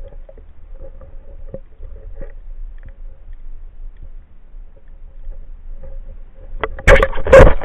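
Muffled underwater sound picked up through a speargun-mounted camera housing: faint scattered clicks and taps over a low hum, then a loud rushing burst of water noise about seven seconds in.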